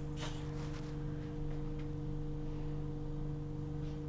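A steady low electrical hum with a few faint soft taps and rustles of gloved hands handling small plastic tubes.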